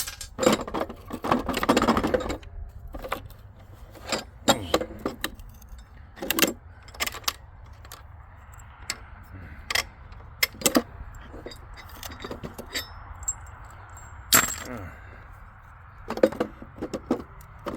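Irregular metallic clinks and knocks of heavy copper breaker parts and hand tools being handled as a large circuit breaker is taken apart, some strikes sharper and louder than others.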